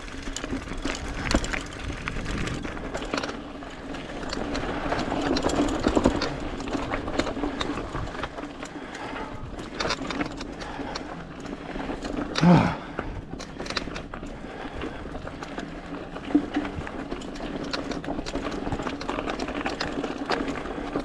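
eBike kit motor running at full power and straining on a steep climb, a steady whine under many small rattles and clicks from the bike on rough trail. By the rider's own account the motor lacks the strength for the oversized 29er wheel. About halfway through comes a brief, louder swooping sound.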